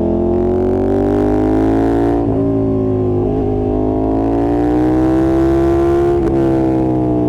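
2020 KTM 1290 Super Duke R's V-twin engine pulling hard under acceleration, its pitch climbing steadily. It cuts out briefly about two, three and a half and six seconds in, the quick breaks of quickshifter upshifts, and it eases off slightly near the end.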